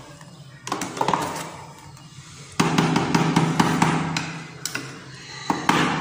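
A spoon stirring thick ground kadhi batter in a blender jar, knocking and scraping against the jar's sides in a string of clicks. A steady low hum joins for about two seconds in the middle.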